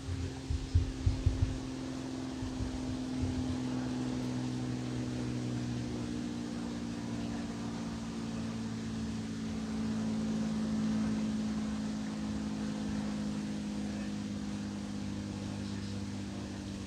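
A steady engine hum from a passing vehicle that slowly falls in pitch, growing loudest about eleven seconds in. A few low thumps come in the first second and a half.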